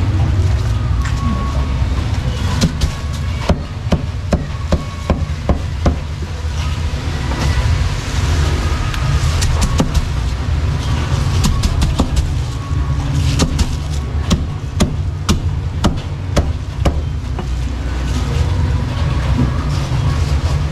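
Meat cleaver chopping through roast duck on a thick round chopping board: sharp knocks in quick runs, at times about two a second, over a steady low background rumble.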